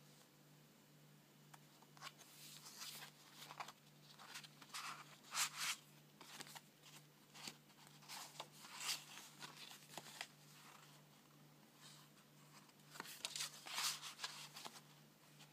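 Heavy kraft-paper and patterned-paper pages of a handmade journal being turned by hand, rustling and flapping in short bursts, several page turns with pauses between.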